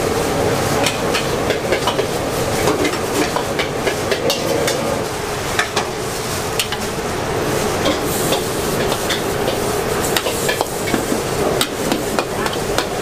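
Metal spatula scraping and clanking against a steel wok as noodles, tofu and bean sprouts are stir-fried, over a steady sizzle. The sharp clacks come irregularly, many to the second in flurries.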